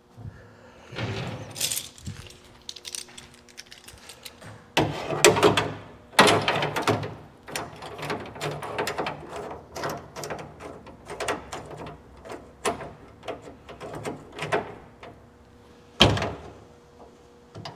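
Irregular metallic clinks, rattles and knocks from steel jig pieces being handled and fitted against the car body. There are two busy rattling stretches about five and seven seconds in, and one sharp knock near the end.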